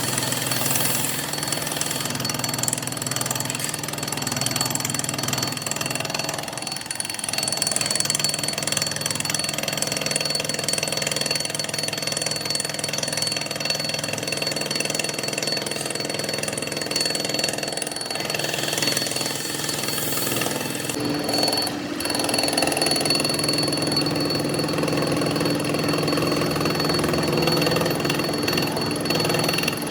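Metalworking machinery running steadily: a continuous mechanical drone with several held tones and a fast, dense rattle, growing a little louder about two-thirds of the way in.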